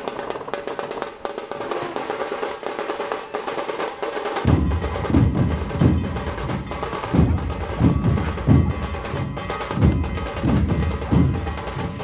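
Background music with a percussive, woody rhythm; a heavy low drum beat comes in about four and a half seconds in and keeps a steady pulse.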